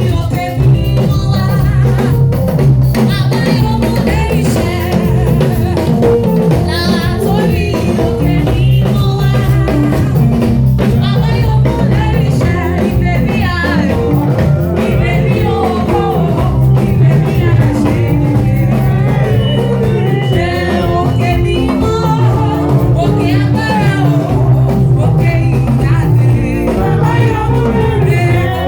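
Live praise music: singing over a steady drum kit and bass groove.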